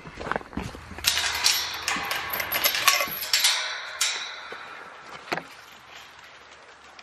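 Metal tube-and-wire-mesh farm gate being handled and swung, clattering and clanking, busiest between about one and three and a half seconds in, then a few single knocks.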